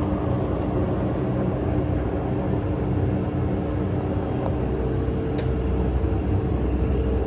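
1987 Poreba TR115B2 engine lathe running under power, its headstock giving a smooth, steady hum. About five seconds in, the whine steps up in pitch and a deeper rumble comes in.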